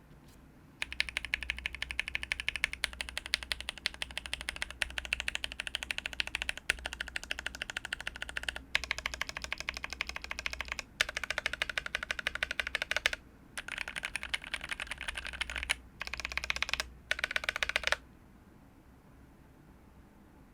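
Fast continuous typing on a mechanical keyboard fitted with Durock Koala 67g tactile switches, on a KBD67 V3 with an FR4 plate and GMK keycaps. A quick run of key presses and bottom-outs with a few short breaks, stopping a couple of seconds before the end.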